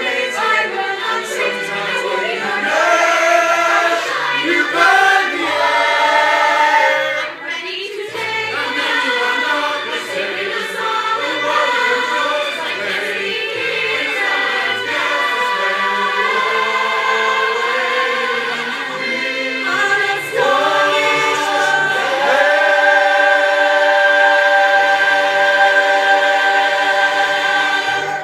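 A choir singing, ending on a long held chord.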